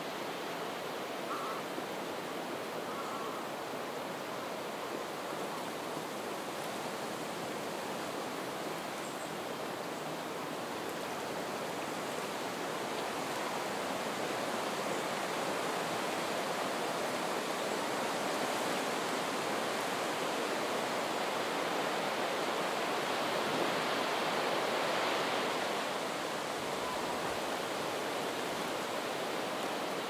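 Soft wind rustling through marsh reeds, with water lapping at the shore. The wind swells through the middle and eases off a few seconds before the end.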